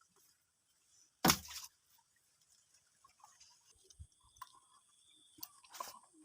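A sharp knock or clatter about a second in, then scattered light clicks and taps from handling, with a faint steady high insect buzz coming in midway.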